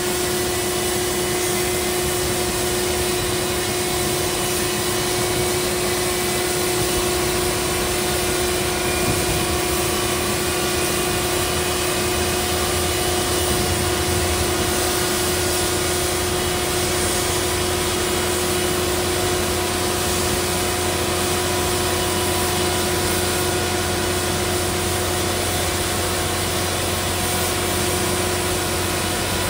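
Boeing 777-300ER's GE90-115B turbofan being started with air from a ground air start unit: a steady turbine whine, with faint tones rising slowly over the first several seconds as the engine spools up. A low rumble grows in about halfway through.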